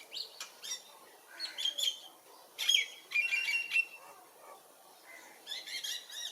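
Birds chirping in short clusters of quick high calls, with a loud run of repeated notes about three seconds in and more chirps near the end.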